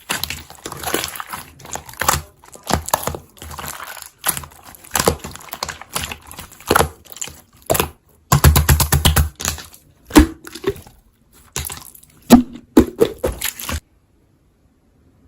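Slime being squeezed and poked by hand, giving irregular runs of sticky clicks, pops and crackles, with a dense burst about two thirds of the way through. The sound cuts off suddenly near the end.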